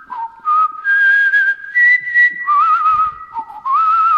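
A person whistling a melody as the song's introduction: held notes with a wavering vibrato that step between a few pitches, with breath noise around the tone.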